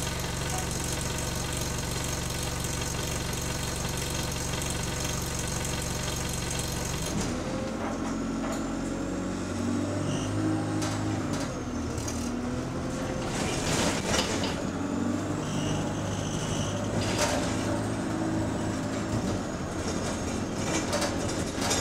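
Diesel bus engine heard from inside the saloon: it idles steadily at a stop, then about seven seconds in the bus pulls away and the engine note climbs and steps down again and again as it accelerates through the gears, with a few knocks and rattles from the body along the way.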